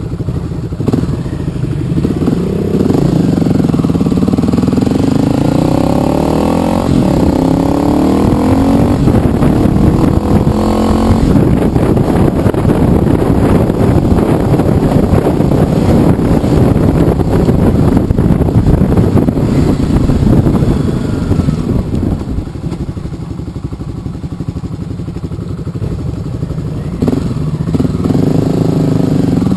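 Motorcycle engine under way, climbing in pitch a few times as it accelerates, then running at speed with heavy wind and road noise. It eases off for a few seconds about three quarters through before pulling again.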